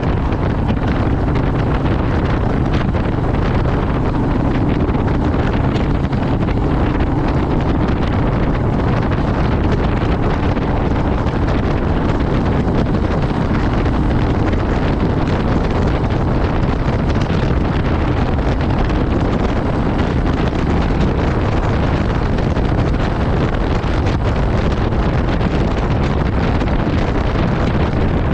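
Steady wind rush over the microphone while a Royal Enfield Meteor 350 motorcycle cruises at road speed, with the single-cylinder engine and tyre noise running underneath.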